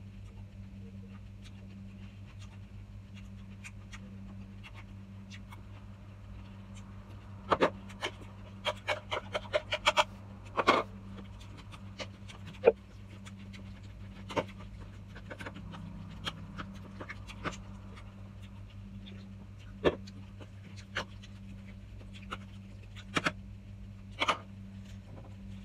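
Metal spoon clinking and scraping against plastic bowls while scooping and mixing a salad. A quick run of clicks comes about a third of the way in, followed by scattered single clinks, over a steady low hum.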